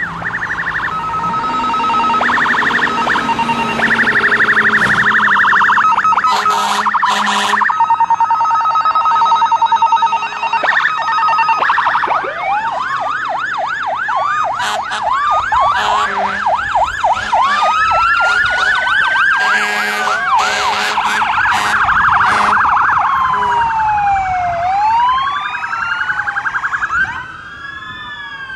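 Several emergency-vehicle sirens sounding at once from a passing procession of fire trucks and other emergency vehicles: overlapping fast yelping sweeps and wails, with steady alternating two-pitch tones early on and slow rising-and-falling wails near the end.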